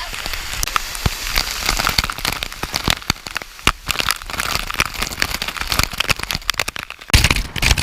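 Water splashing and rushing close to the microphone, full of crackling clicks, with a louder surge of water noise near the end.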